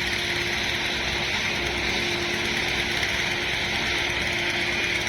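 Engine of road-construction machinery running steadily, with a constant hum and a hissing mechanical noise over it.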